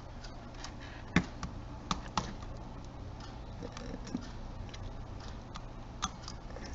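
Small scattered clicks and taps of a precision screwdriver turning screws in a camcorder's plastic body, with a few sharper clicks between one and two seconds in and another near the end.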